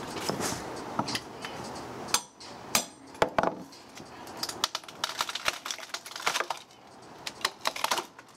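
Hammer striking a steel pry bar wedged in the crack of a dry oak slab: irregular sharp metallic clinks and knocks, with the wood cracking as the slab splits apart.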